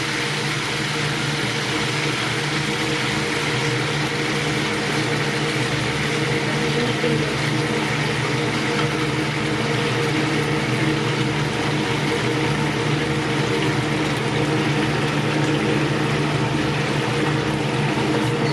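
Pieces of painted spiny lobster sizzling and bubbling in butter sauce in a steel frying pan over a gas flame, a steady frying hiss, with an even low hum underneath.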